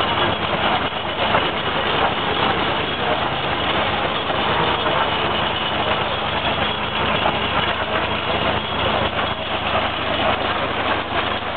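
A 1917 Ford Model T's four-cylinder engine running steadily on the cement mixer.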